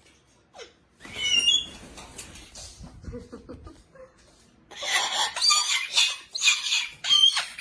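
White cockatoo calling: one short squawk about a second in, then a run of loud squawks and screeches from about five seconds in.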